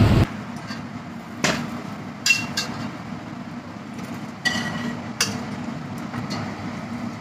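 A steel spoon knocks and scrapes against a steel pan and the rim of a steel pressure cooker as masala is tipped into it. There are about five sharp metallic clinks with brief ringing, over a low steady hum.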